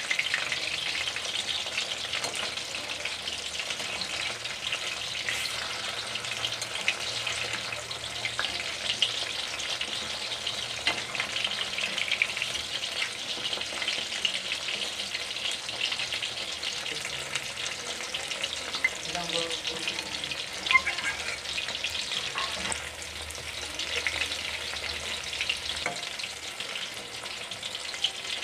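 Batter-coated chicken pakoras deep-frying in hot oil in a steel wok: a steady crackling sizzle, with the spatula that turns them stirring and knocking against the pan, one sharper click about three-quarters of the way through.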